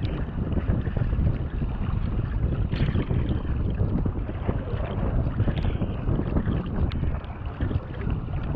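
Wind buffeting the microphone of a bow-mounted camera on a sea kayak in choppy sea, a constant low rumble, with water rushing and splashing around the hull and paddle blades and a few sharp splashes or drips.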